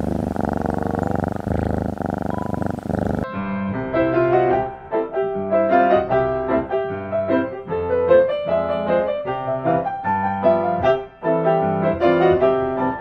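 A cat purring for about three seconds, then an abrupt cut to a bright piano tune with a steady, bouncy rhythm.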